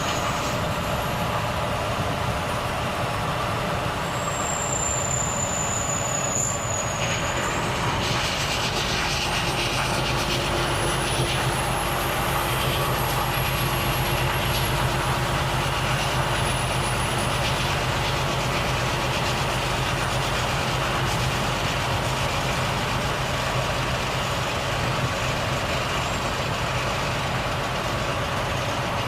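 Volvo FH truck's engine running steadily under way, with road noise. A thin high whistle sounds for a few seconds about four seconds in.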